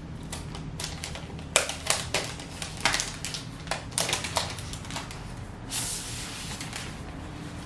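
Protective paper wrap being peeled off a new MacBook's aluminium lid by hand: a run of sharp crackling clicks, then a longer, smoother peeling hiss about six seconds in.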